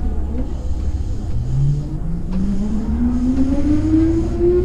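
Hankyu electric train pulling away and accelerating: the traction motor whine climbs steadily in pitch from about a second in, over a low running rumble.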